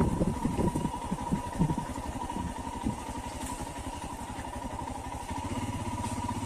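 Motorcycle engine running, with a few irregular knocks in the first couple of seconds; about five seconds in it settles into a steadier, even note.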